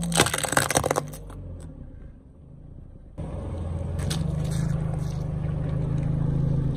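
Plastic toy water pistols cracking and crunching under a car tyre for about the first second. After a cut, the car's engine hums steadily while the tyre squashes a bunch of tomatoes, with a few short crackles about four seconds in.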